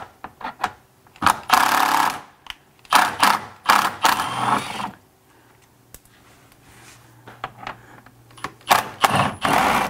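Cordless power driver running in short bursts, backing out the wood screws that hold the car's front bumper lip: about five quick bursts in the first half, then another near the end.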